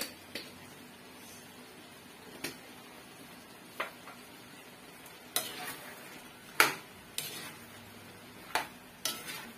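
Metal ladle knocking and scraping against an aluminium wok while a thick chicken and potato stew is seasoned and stirred: about nine sharp clinks spread through, the loudest about two-thirds of the way in.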